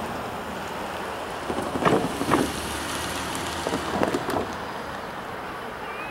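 Wind blowing across the microphone outdoors, a steady rushing with two stronger gusts about two and four seconds in.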